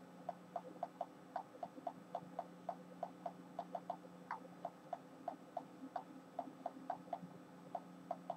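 Faint, irregular run of quick taps, about four to five a second, from fingers typing a text message on a smartphone touchscreen.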